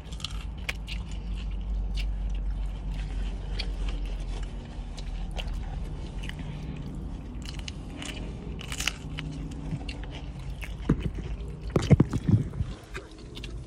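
Close-up chewing and biting of food inside a car, over the cabin's steady low rumble. A few louder knocks come near the end as the phone is handled.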